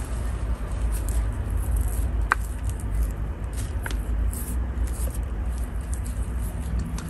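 Steady low rumble under soft rustling and small crackles as muddy carrots and their leafy tops are handled and rubbed clean, with two brief faint chirps about two and four seconds in.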